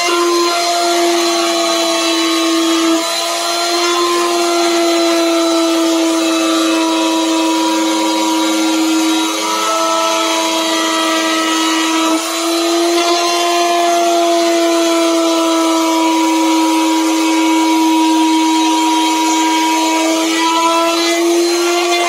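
Handheld electric router running at high speed, its bit cutting carving grooves into a wooden panel. It makes a steady, loud whine that sags briefly a few times as the bit takes load.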